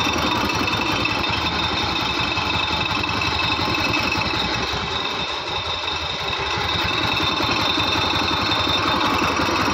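TVS Jupiter scooter's single-cylinder engine idling steadily on its side stand, with a noise from the engine. The mechanic traces it to the self-starter ratchet rubbing while the side stand is down.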